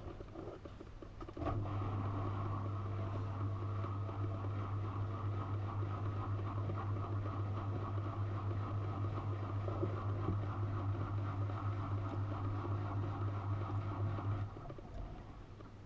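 Miele washing machine's drain pump humming steadily as it pumps out the wash water at the end of the main wash. It starts about a second and a half in and cuts off about a second before the end.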